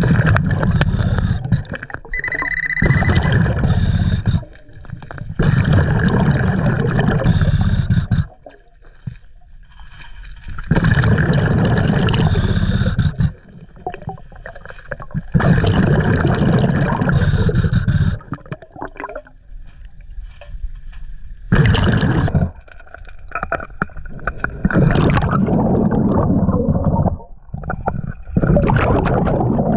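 Diver breathing through a scuba regulator underwater: loud bubbling, rumbling exhalations lasting two to three seconds come about every five seconds, with quieter inhalations between.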